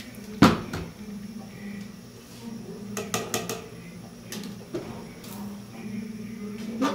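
A metal utensil knocks and clinks against a stainless steel cooking pot as rice is stirred into boiling broth. There is one sharp knock about half a second in and a quick run of clinks around three seconds in, over a steady low hum.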